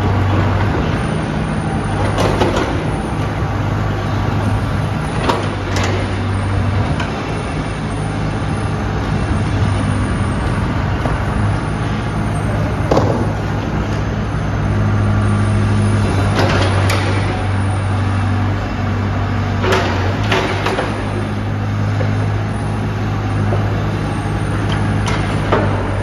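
Doosan DH55 midi excavator's diesel engine running steadily, with short sharp noises breaking in every few seconds.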